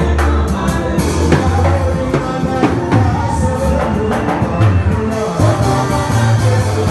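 A live band playing loudly: electronic keyboard, electric bass and drums with steady beats, and a voice singing over them.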